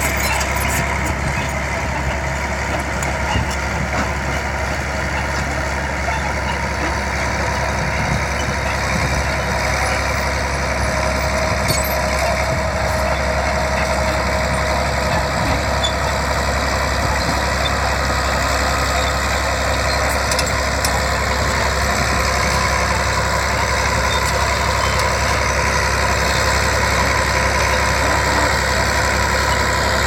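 A crawler bulldozer's diesel engine runs steadily while the machine pushes soil with its blade, with faint clanks from the tracks. It grows slightly louder toward the end as the dozer comes closer.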